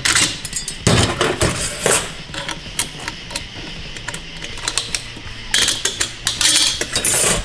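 Metal parts of a 6L80 automatic transmission's clutch drum clicking and clattering as they are worked apart by hand with a pick on a steel bench. Sharp knocks come in the first two seconds, then a quieter stretch, then a busier run of clatter near the end.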